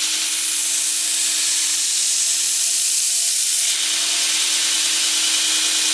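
2x60 belt grinder running with a steady hum while the edge of a steel bar is ground against the belt in a chamfer fixture, a hissing grind that lasts about three and a half seconds and then eases off as the contact ends, leaving the belt running.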